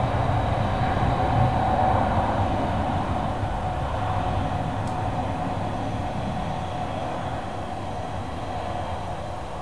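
Boeing 777-300ER's GE90 turbofans at takeoff power during the takeoff roll: a steady jet rumble with a whine in the middle, slowly fading as the aircraft pulls away.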